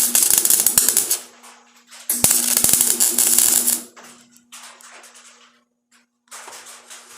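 Welding arc crackling in two short bursts, the second about two seconds in, as rust pit holes in car-body sheet metal are welded shut against a copper backer spoon. A faint steady hum runs underneath.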